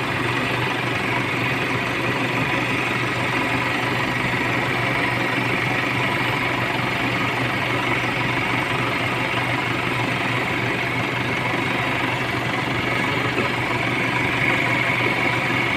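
Kia Sportage CRDi's common-rail diesel engine idling steadily.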